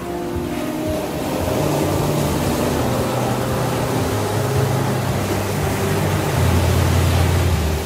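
Ocean surf washing onto a beach, under a slow ambient music track of long-held low notes that change in steps every couple of seconds and swell near the end.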